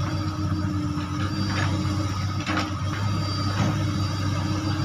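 Komatsu long-reach excavator's diesel engine running steadily while the boom lowers the bucket into the canal, with three brief knocks spaced about a second apart near the middle.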